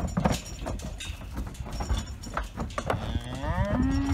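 Galloway bulls' hooves clattering and knocking on a wooden trailer ramp as they come off it, then about three seconds in one of the bulls starts a long moo that rises in pitch.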